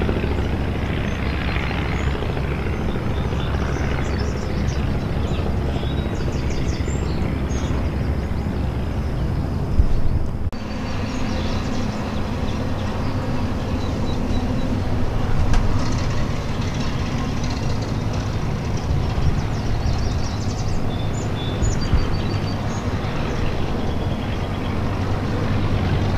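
Kinner B-2 Sportwing in flight, its five-cylinder Kinner B-5 radial engine and propeller running steadily as the plane approaches. The engine hum grows a little louder toward the end.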